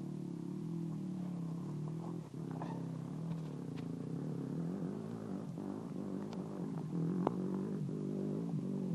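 Dirt bike engine running at low revs: a steady, slightly wavering low hum. A few faint clicks are heard over it.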